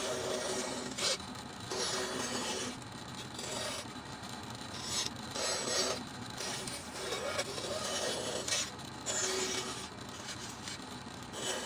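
A hand tool rasping or sanding wood in repeated rubbing strokes, roughly one stroke a second.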